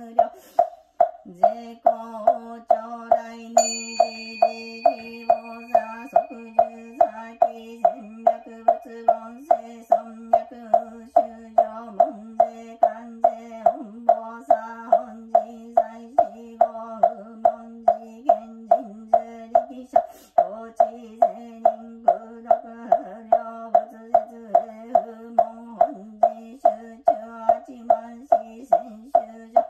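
Buddhist sutra chanting in a steady low monotone, kept in time by a wooden fish drum (mokugyo) knocked about twice a second. A rin singing-bowl bell is struck once about three and a half seconds in and rings on for several seconds.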